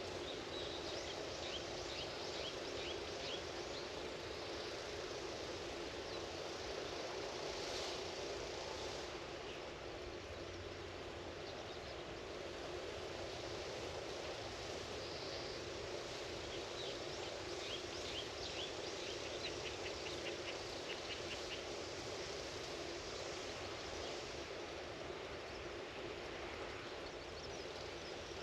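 Outdoor rural ambience: a steady, even background hiss, with small birds chirping in quick runs of short high calls, once near the start and again about two-thirds of the way through.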